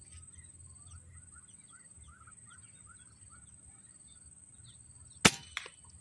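Faint short bird chirps repeating several times a second, then a single sharp crack about five seconds in as a PCP air rifle (FX Impact M3) is fired at a perched green pigeon, followed by a fainter click.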